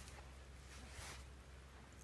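Near silence with a faint, steady low rumble.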